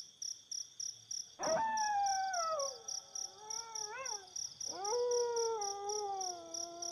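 Two long, falling howls, like a dog howling at night: one starting about a second and a half in, the second about five seconds in. Crickets chirp steadily and quickly throughout.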